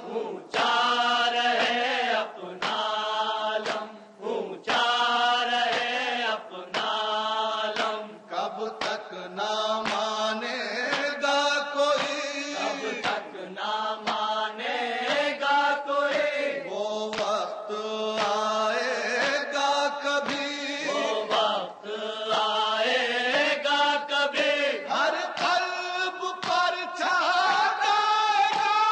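A voice chanting an Urdu noha, a Shia lament, in long melodic phrases that rise and fall, with no instruments heard.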